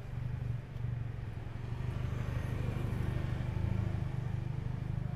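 Low, steady rumble of street traffic, with motor vehicle engines running nearby.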